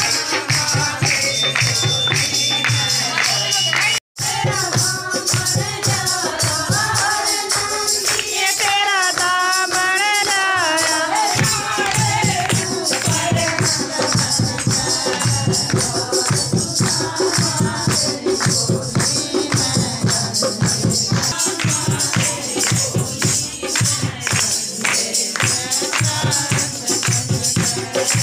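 A group of women singing a devotional bhajan, with hand clapping and jingling percussion keeping a fast, steady beat. The sound cuts out for an instant about four seconds in.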